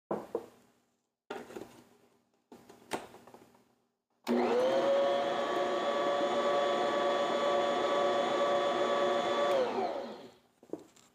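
A few light clatters, then an electric stand mixer starts about four seconds in and runs steadily with a motor whine, beating cake batter, before spinning down near the end.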